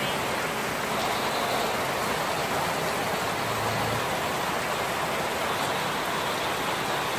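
Steady rain falling on garden grass and leafy plants, an even hiss.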